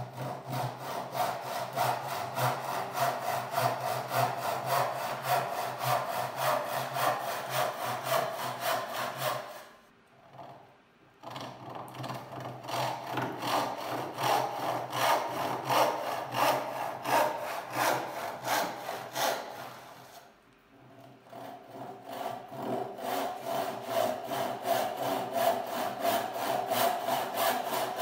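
BT&C Hardware Store Saw, a small handsaw with deep gullets, ripping a board clamped upright in a vise with steady back-and-forth strokes. The sawing stops briefly twice, about ten and twenty seconds in.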